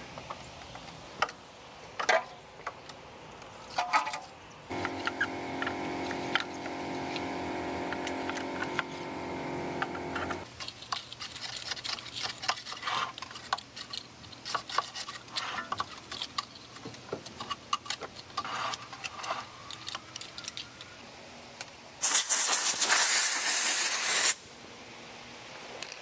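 Metal tools clinking and tapping while working on a car's wheel hub and brake. A steady hum of several tones runs for about five seconds, and near the end a loud burst of hissing air lasts about two seconds.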